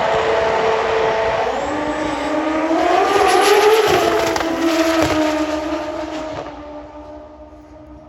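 Drag bike engine at full throttle on a quarter-mile pass, its pitch climbing for the first few seconds and then fading into the distance near the end.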